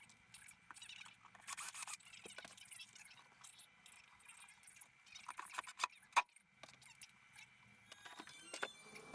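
Faint, scattered clicks, taps and short scrapes of small objects being handled.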